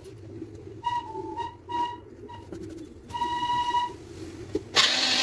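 An electric mixer-grinder starts near the end with a loud, even whirring rush, blending tomatoes and coriander into momo achar. Before it there is a low steady murmur and a few short, high whistle-like tones.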